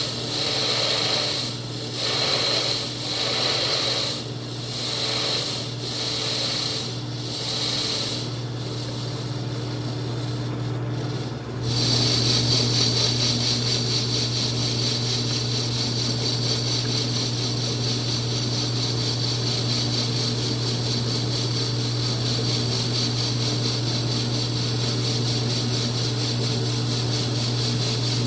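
Metal lathe running while the register on a chuck back plate is turned down, with a steady hum and a high whine. At first the sound swells and fades about once a second; about twelve seconds in it becomes louder and steady.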